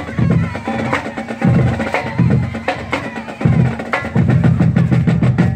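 Marching band playing: drums hitting over short, repeated blasts of low brass chords.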